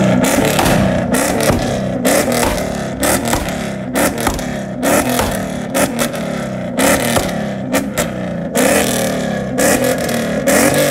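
Performance car engine revved hard in quick blips, about once a second, with sharp exhaust pops and crackles between the revs.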